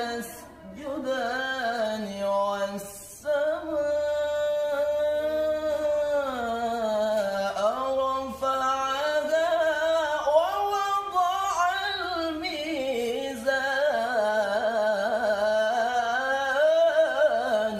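A man chanting Quran recitation (tilawah) unaccompanied in the melismatic maqam style, one long line whose pitch slides and turns in quick ornaments, with a short break for breath about three seconds in.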